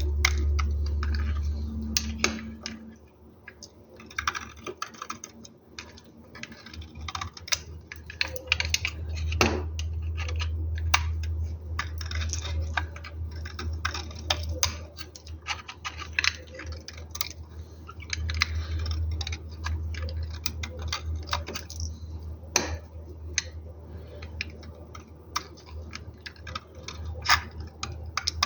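Knife cutting soap into cubes: an irregular run of crisp clicks and crunches as the blade passes through the soap. A steady low hum runs underneath and drops away for a few seconds early on.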